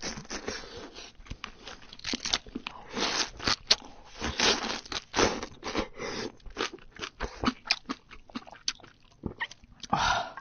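Close-miked crunching and chewing as a cooked crab leg in its shell is bitten, cracked and eaten, with irregular sharp clicks and crackles. A louder burst comes near the end.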